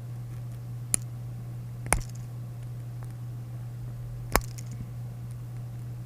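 Three sharp clicks of a Victorinox Swiss Army knife's metal tools being pried out and snapping against their springs, over a steady low hum.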